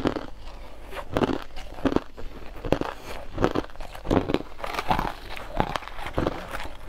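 Close-up crunching of purple-coloured crushed ice as it is bitten and chewed and scooped with a metal spoon. A run of short, crisp crunches, about one or two a second.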